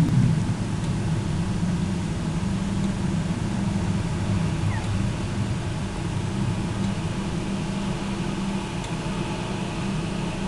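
Storm wind blowing steadily, a low rushing noise.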